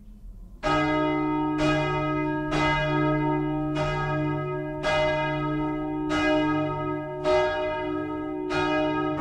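Church bell ringing, about eight strokes roughly a second apart, each note ringing on into the next.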